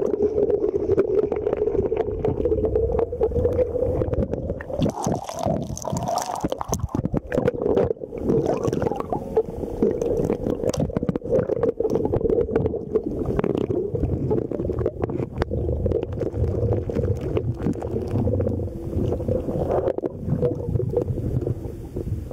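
River water heard through a submerged camera: a muffled, steady rush with a constant low drone, broken by many sharp clicks and knocks of sand and gravel being stirred as a hand fans and digs into the riverbed.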